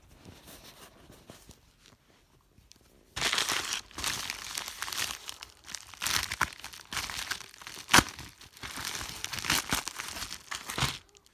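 Packaging being torn and crinkled open by hand in irregular spurts, with a sharp snap about eight seconds in. The first few seconds are quiet.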